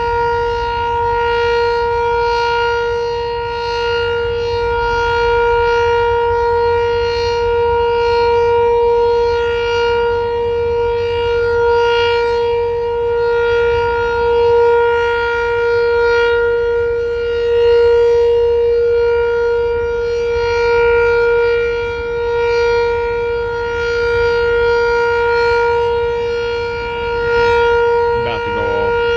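Sentry 7V8 outdoor warning siren sounding a steady tone during a siren test, its pitch held level while the volume swells and fades gently every few seconds.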